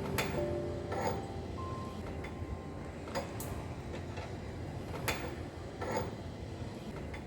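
Car scissor jack being wound up by hand with its crank tool, giving sharp metallic clicks at irregular intervals, about five in a few seconds.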